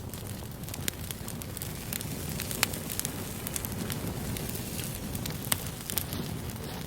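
A fire crackling: many sharp pops and snaps over a steady hiss.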